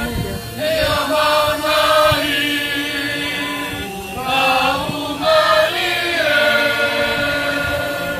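Tongan youth choir singing together in long held notes, with a brief break between phrases about four seconds in.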